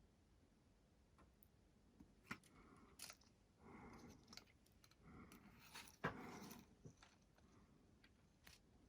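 Faint clicks and short rustles of small parts and tools being handled at a workbench, with one sharper click about six seconds in.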